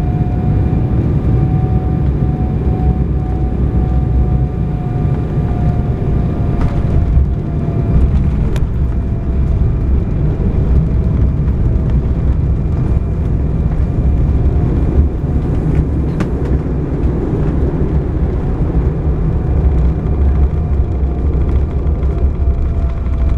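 Jet airliner cabin noise during landing, heard from a window seat over the wing: a loud, steady rumble of engines and airflow with a steady engine tone that drifts slightly in pitch. Two sharp knocks come about seven and eight and a half seconds in, around the touchdown. The rest is the rumble of the roll-out along the runway with the spoilers raised.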